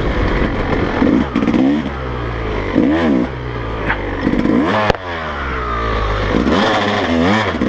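2017 Yamaha YZ250 single-cylinder two-stroke engine revving in repeated short blips as the bike is worked slowly through a tight section. A sharp knock comes just before five seconds in as the bike goes down.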